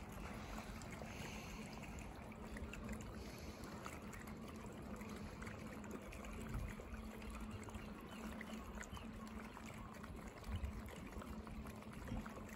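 Faint harbour water trickling and lapping, with many tiny splashes.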